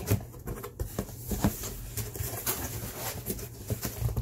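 Large cardboard shipping box being handled and opened: its flaps scrape and knock, giving a string of irregular taps and rustles.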